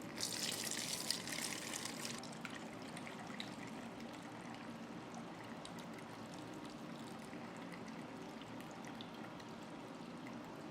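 Liquid poured into a container for about two seconds just after the start, followed by faint scattered ticks.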